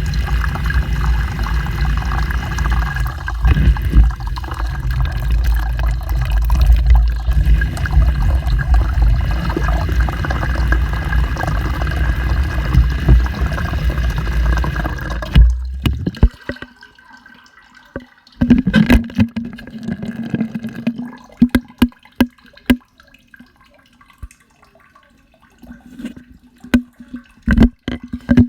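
Washing machine with water rushing and sloshing loudly, cutting off sharply about halfway through. After that come scattered knocks and clunks over a low steady hum.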